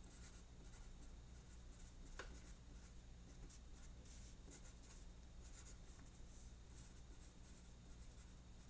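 Faint strokes of a pencil writing on paper, in short irregular scratches, over a low steady hum.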